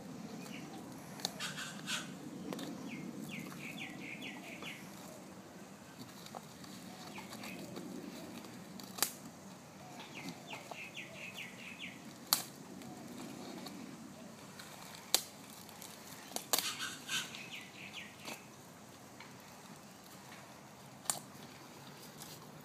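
A Staffordshire bull terrier chewing and tearing a foil party hat: sharp cracks and crackles every few seconds as the paper rips. Three short runs of quick high-pitched chirping sound in the background.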